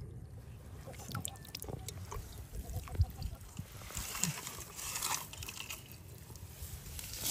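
Hands moving in shallow water: small irregular splashes, drips and sloshes.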